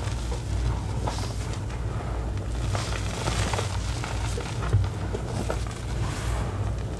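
Hands squeezing, scooping and patting a pile of crushed gym chalk and cornstarch powder: soft crunching and rustling of the powder, with a sharper crunch about two-thirds of the way in, over a steady low hum.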